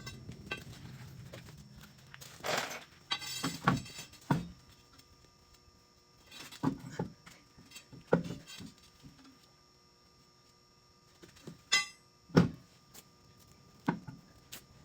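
Scattered thunks, clanks and short metallic rattles of hand work on truck wheels, about a dozen separate hits with quiet gaps between them; the loudest knocks fall near the middle and about four seconds from the end.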